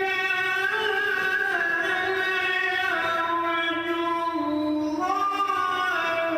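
Qur'an recitation (tilawah) in a high, melodious solo voice: one long drawn-out phrase of held notes that slide and step between pitches, settling lower about two-thirds of the way through.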